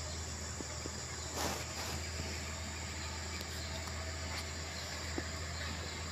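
Distant motor grader's diesel engine running as a steady low drone, under a steady high insect buzz. A brief rush of noise comes about a second and a half in.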